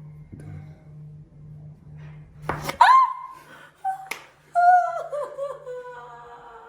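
A woman's high-pitched shriek of surprise as a chiropractic adjustment is delivered, starting suddenly about 2.7 s in, followed a second or so later by a sharp slap as she hits the chiropractor, then wavering, falling laugh-cries.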